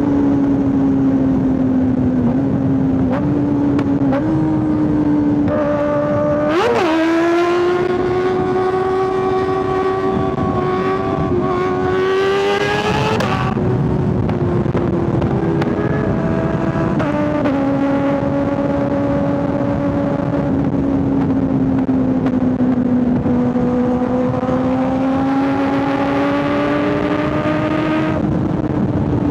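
Kawasaki ZX-6R 636 inline-four motorcycle engine cruising at steady revs, under a steady rush of riding noise. About six seconds in the revs blip and climb, hold higher for several seconds, then settle back to the earlier cruising pitch.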